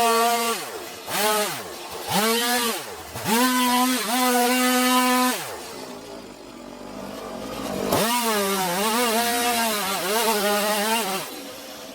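Stihl MS 180 C two-stroke chainsaw being blipped to full throttle and let fall back several times, then held high and dipping and wavering in pitch as it cuts into the wood. It drops back toward idle just before the end.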